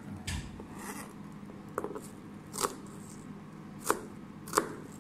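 Kitchen knife chopping on a cutting board: four sharp, separate strokes at uneven spacing, about a second apart, over a faint steady hum.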